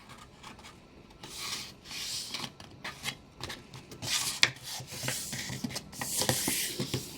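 A square of origami paper rustling and rubbing as it is folded in half and creased, in several short bursts with a few sharp crinkles.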